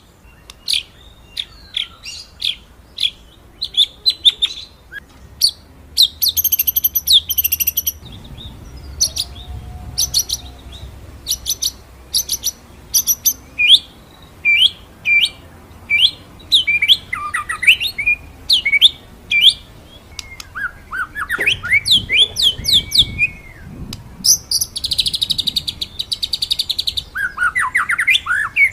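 White-rumped shama (murai batu) singing in its rolling, 'shooting' style: strings of sharp repeated whistled notes and quick rising and falling phrases, broken by fast buzzy trills, with a long one near the end.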